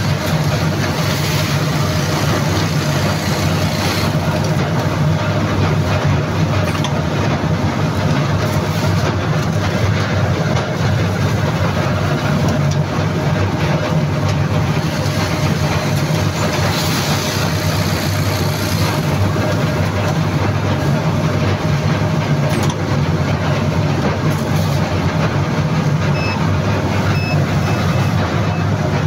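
Steady loud drone of plant machinery running, a low hum with a faint steady whine over it, and a few brief rushing hisses. Faint short beeps repeat near the end.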